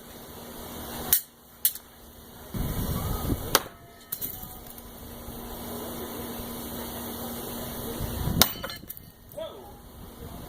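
Heavy throwing knives striking a wooden 2x4 target: several sharp thunks a few seconds apart, the loudest near the end, when a knife hits a hard knot in the wood and blows a chunk out of it.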